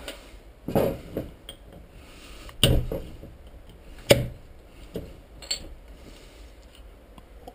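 A few sharp knocks and clinks of hard objects being handled and set down on a hard surface, the loudest near the middle.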